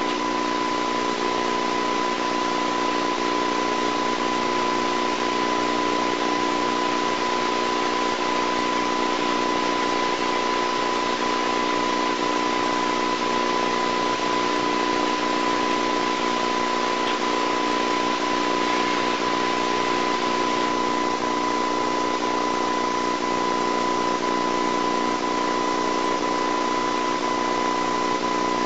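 Steady hiss with a constant high-pitched tone and a lower hum, unchanging throughout and with no other sound: background noise of the recording.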